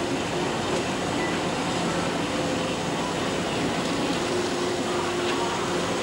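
Ship's machinery running steadily: a constant mechanical drone with a low hum.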